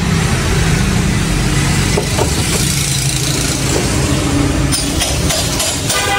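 A motor running steadily with a low hum, with several sharp clicks near the end.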